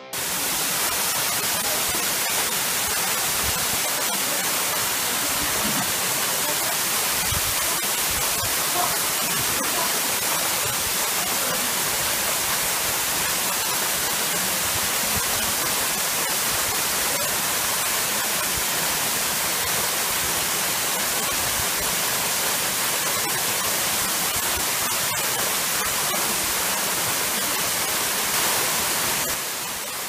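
Waterfall pouring into a rocky plunge pool: a steady, even rushing hiss that does not change.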